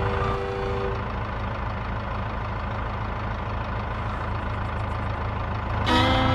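Engine idling with a steady low rumble. Fiddle music fades out about a second in and comes back near the end.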